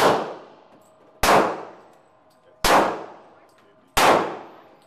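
Semi-automatic pistol fired three times at a slow, even pace, about a second and a half apart, each shot ringing on in a long echo inside an indoor shooting range. The echo of the shot before is still dying away at the start.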